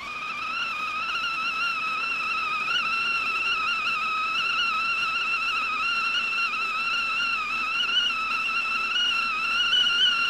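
Stovetop tea kettle whistling at the boil: a steady, high whistle with a slight waver, growing louder over the first second and then holding.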